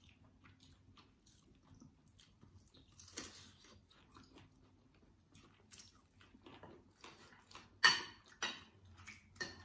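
Close-up chewing and mouth smacks of people eating chicken and rice: soft wet clicks scattered through, with a sharper clack of a spoon on a plate about eight seconds in.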